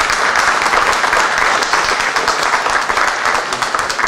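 Audience applauding at the close of a talk: many hands clapping at once, loud and steady.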